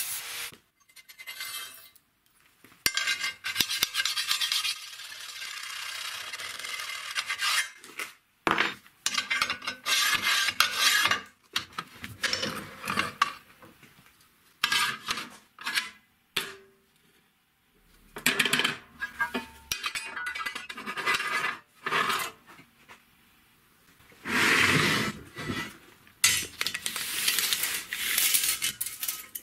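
Angle grinder cutting through square steel tube, stopping about half a second in. It is followed by a string of short bursts of metal rubbing and scraping, with pauses between them.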